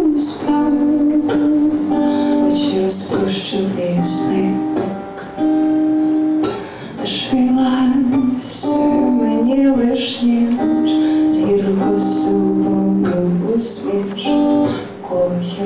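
A woman singing a slow song in long held phrases, with acoustic guitar accompaniment.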